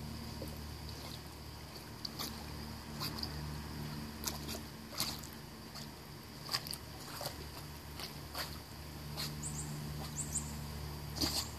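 Pool water splashing and lapping in irregular sharp bursts over a steady low rumble, as a cocker spaniel swims.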